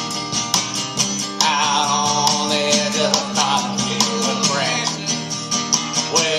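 Country-style song: strummed acoustic guitar with a singing voice.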